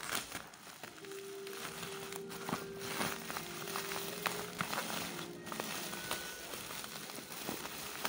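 Bubble wrap crinkling and crackling as it is handled and unwrapped by hand, with many small sharp crackles. A few held notes of faint background music sit underneath.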